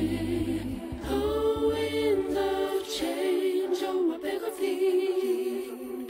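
Background music of held, wordless-sounding vocal harmonies in a choir-like, a cappella style; a low bass part under the voices drops out about two seconds in.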